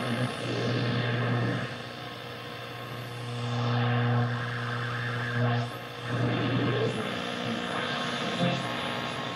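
Kraco KID-581H radio on the AM band being tuned slowly up the low end of the dial. It gives static hiss over a steady low hum, with whistles that sweep in pitch as the tuning passes stations.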